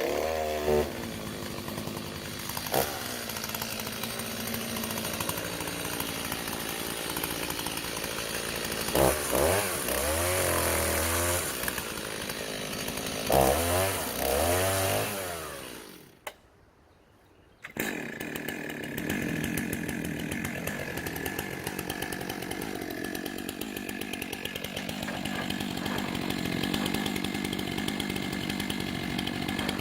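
Chainsaw running, its engine revving up and down several times, then cutting off for a moment before running again at a steadier pitch.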